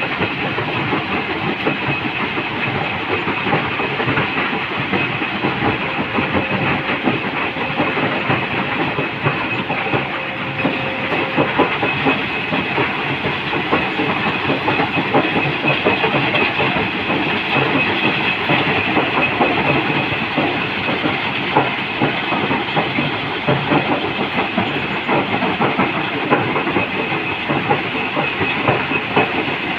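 Stone crusher running, fed with rock by a Komatsu PC200 excavator: a steady, dense clatter and rattle of breaking and tumbling stone with a hiss of machinery.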